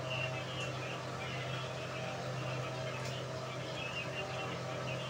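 A dog eating curd rice from a bowl, with soft mouth sounds and a few faint clicks, over a steady low hum.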